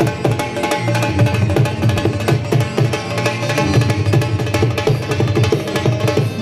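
Music playing with fast, dense drum strokes over a strong bass and pitched instruments.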